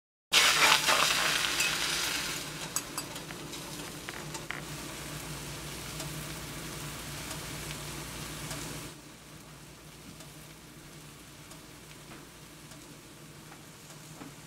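Batter poured into a hot nonstick frying pan, hitting it with a sudden loud sizzle that settles into a steady frying hiss, with a few small clicks. About nine seconds in the sound drops to a fainter hiss.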